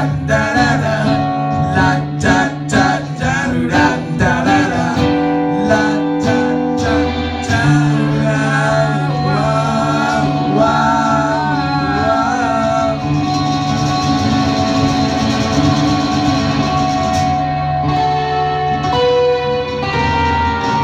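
Live acoustic band music: guitar strummed in sharp rhythmic chords, then a wavering sung melody over held chords from about seven seconds in.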